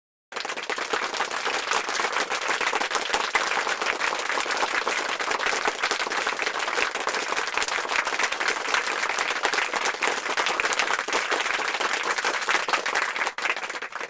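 Audience applause: many people clapping steadily, dying away at the very end.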